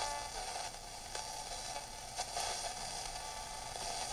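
Faint, steady hiss and static from a 1966 Zenith Royal 51 transistor radio's speaker as its tuning dial is turned off a station, with a few faint clicks.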